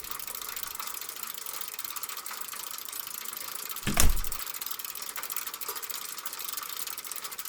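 Rapid, steady mechanical clicking like a ratchet, with one sharp thud about four seconds in.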